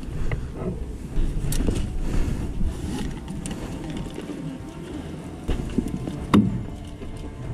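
Background music over handling noise: scattered clicks and knocks of gear and footsteps, with one sharper knock about six seconds in.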